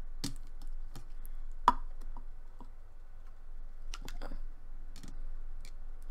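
Jiggly slime with red pieces being squeezed and pulled apart by hand, making scattered soft sticky clicks and squelches, the sharpest about a second and a half in. Near the end it is pressed back into its plastic tub.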